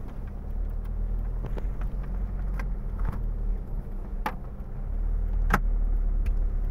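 Car driving, heard from inside the cabin: a steady low road and engine rumble with a few sharp clicks or knocks, the loudest about five and a half seconds in.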